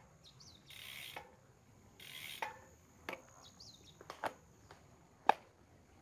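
Road bicycle in motion: a scattered run of sharp clicks and knocks from the bike, the loudest a little past five seconds in, with two short hissing rushes of air near the start and faint bird chirps.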